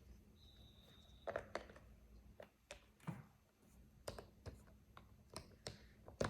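Scattered light taps and clicks of hands handling a sticky pop-it fidget toy against a surface, with a brief faint high beep about half a second in.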